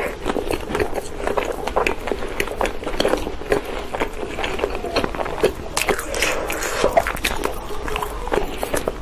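Close-up eating sounds: a person biting and chewing, with many short crisp crunching clicks and wet mouth sounds throughout.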